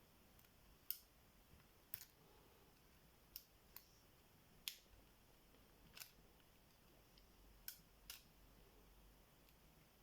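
Faint, irregular metallic clicks and taps, about eight over ten seconds, from a pick and tension tool working against the pins and collar of a seven-pin tubular lock as it is picked.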